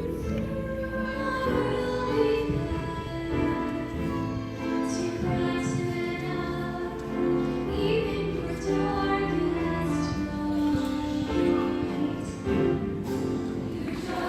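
Junior high choir singing held notes with instrumental accompaniment.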